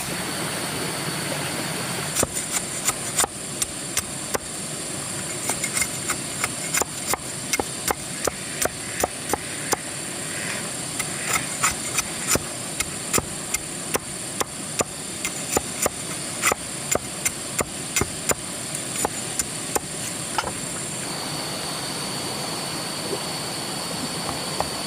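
A long run of sharp knocks, about two a second, over a steady hiss and a thin high whine; the knocks stop a few seconds before the end.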